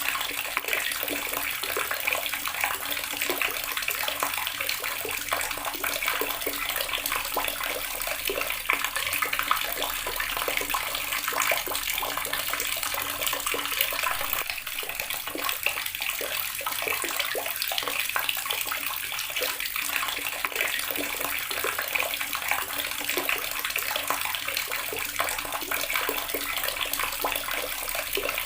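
Water running steadily from a tap, a continuous splashing stream.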